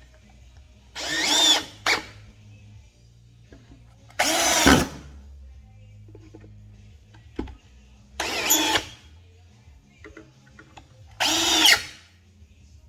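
Power drill driving the mounting screws of a subwoofer into its box in four short runs of under a second each, a few seconds apart, with a quick blip just after the first.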